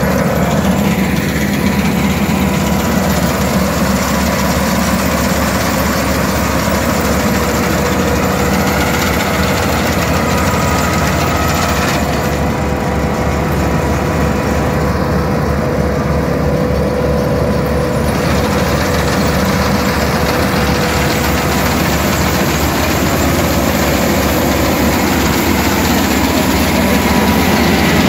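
Kubota KAR90 combine harvester running while it cuts standing paddy: a loud, steady engine drone with a thin steady whine over it.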